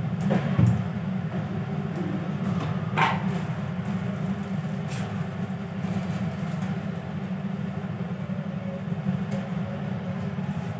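Steady low rumble in a kitchen, with a few faint light clicks of utensils.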